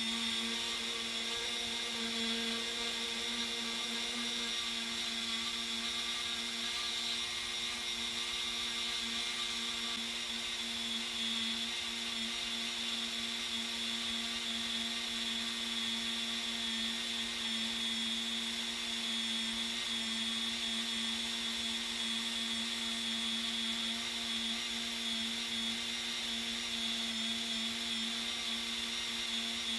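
Handheld rotary tool running at a steady high speed, its small burr grinding hardened filler putty on a 1:64-scale bumper. It gives an even, unchanging whine that cuts off at the very end.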